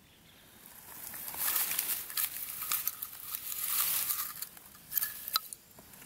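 Dry grass and dead leaves rustling and crackling close to the microphone, with a couple of sharp snaps near the end.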